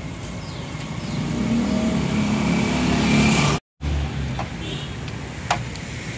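A road vehicle passing close by, its engine growing louder for about three seconds before the sound cuts off suddenly. Then a metal ladle stirring chickpea curry (chana) in a large aluminium pot, clinking sharply against the pot a couple of times.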